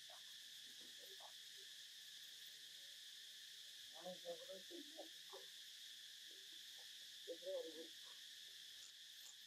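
Faint steady drone of insects. Two brief faint vocal sounds come about four and seven and a half seconds in.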